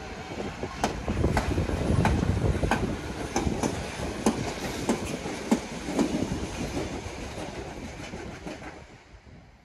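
Litra SA S-train, an electric multiple unit, running past on the rails with sharp, irregular wheel clicks over the track joints. The sound fades steadily over the last few seconds as the train moves away.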